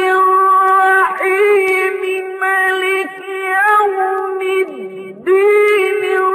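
Male Quran reciter's voice in ornamented mujawwad recitation, holding a long high note with small melodic turns. About five seconds in the voice drops low and quiet for a moment, then returns to the high held tone.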